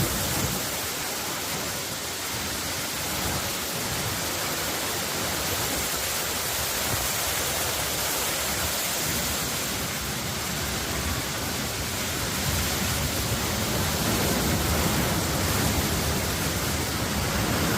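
Steady rushing storm noise, with an uneven low rumble underneath.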